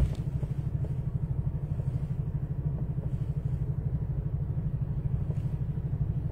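Vehicle engines idling in stopped traffic, heard from inside a car cabin: a low, steady rumble with a fast, even pulse, and a light click at the very start.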